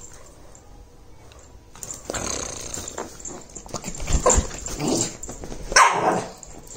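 Lhasa Apso dog growling and barking in play, starting about two seconds in, in rough rising and falling bouts with the loudest one near the end.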